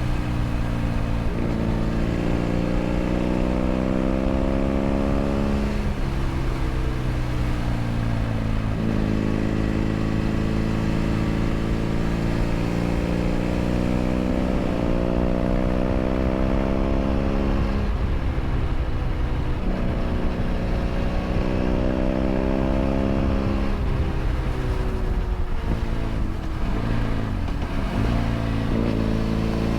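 BMW F800 GS parallel-twin engine through a LeoVince LV ONE EVO stainless exhaust, heard onboard under way. The revs climb and then drop sharply again and again as it shifts up through the gears. In the latter part the revs fall and the engine slows before picking up again near the end, all over steady wind noise.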